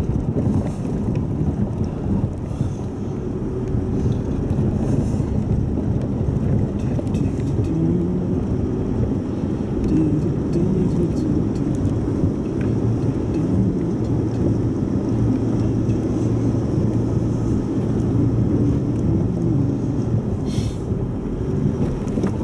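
Four-wheel-drive's engine and tyre noise heard inside the cabin while driving a dirt track: a steady low rumble whose engine note wavers through the middle and settles to an even hum later on.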